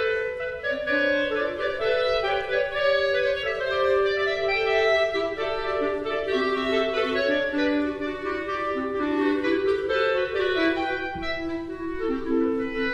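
Clarinet ensemble playing several overlapping held notes at once, the lines shifting step by step in pitch.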